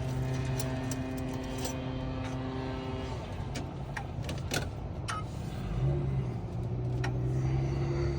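Key-cutting machine running as it cuts a test key, its motor humming steadily with a few sharp clicks. The motor hum drops about three seconds in and comes back, rising in pitch, near six seconds.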